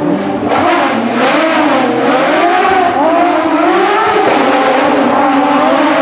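Porsche 911 GT3 rally car's naturally aspirated flat-six engine working hard through tight bends, its pitch rising and falling again and again as the driver accelerates, lifts and changes gear.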